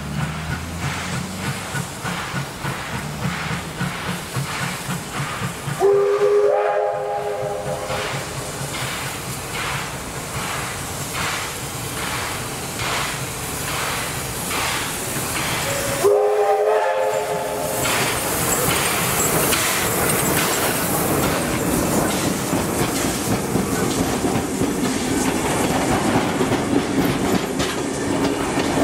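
Steam locomotive approaching under steam with a regular chuffing exhaust, about two beats a second. It sounds its whistle twice, about six seconds in and again about sixteen seconds in, each blast about a second and a half long. The passenger carriages then roll past close by, their wheels rumbling and clicking over the rails.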